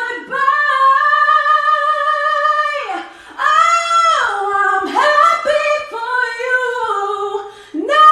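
A woman singing a cappella in a high voice in a small bathroom. She holds one long note for over two seconds, then after a short breath sings a string of shorter, sliding phrases.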